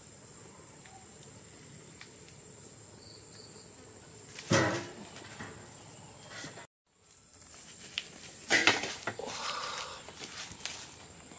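A ladle and a stainless steel tray clattering as a boiled beef head is lifted from the pot onto the tray: one sharp knock about four seconds in, then a run of clatters and knocks near the end. A steady high hiss sits underneath.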